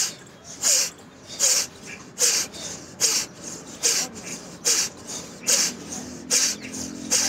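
Sharp, forceful breaths through the nose, one about every 0.8 seconds in a steady rhythm, as in a yogic breathing exercise.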